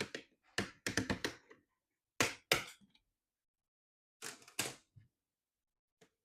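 Plastic clips of a laptop's LCD bezel snapping and cracking as the bezel is pried off with a plastic pry tool: a series of sharp clicks in small clusters with pauses between.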